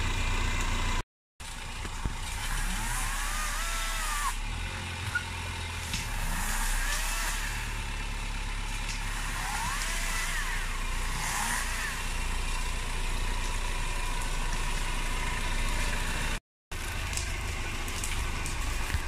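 Engine of an off-road 4x4 running steadily at low revs as the vehicle moves slowly along a rough trail, with two brief moments where the sound cuts out completely.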